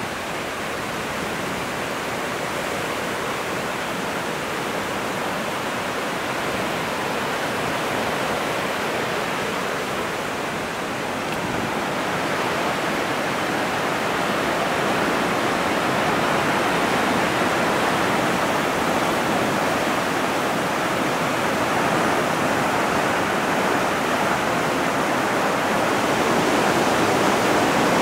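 A river in flood rushing past: a steady noise of fast, turbulent water, growing somewhat louder about halfway through.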